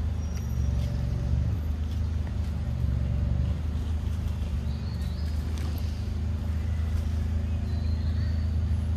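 Steady low hum of a running motor, with two faint short high chirps about five and eight seconds in.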